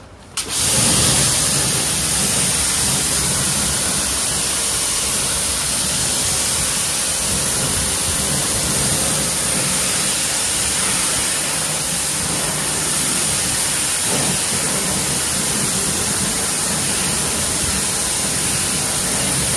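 Water spray rinsing cleaner suds off a car's tire and wheel: a loud, steady hiss that starts about half a second in.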